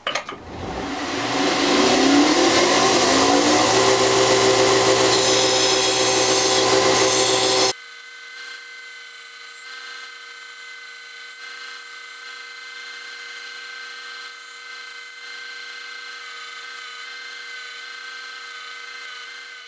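Belt grinder spinning up with a rising whine, then running loudly as a steel knife blade is rough-ground against its contact wheel. About eight seconds in, the sound drops abruptly to a much quieter, thinner steady whine.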